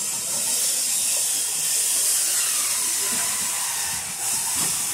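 A steady, high hiss.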